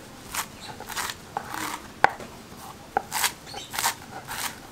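Large chef's knife chopping fresh coriander leaves on a wooden cutting board: unevenly paced strokes about two a second, each a short cut ending in a tap of the blade on the board.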